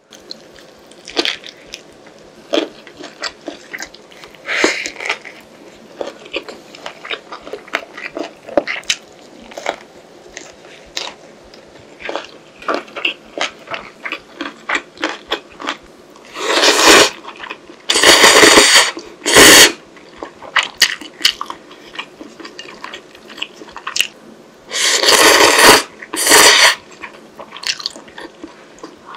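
Close-miked chewing and wet mouth clicks from eating tuna kimbap and ramen. Loud ramen noodle slurps break in, three a bit over halfway through and two more near the end.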